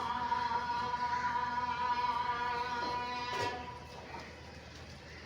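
Background music with long held notes, dropping away about three and a half seconds in.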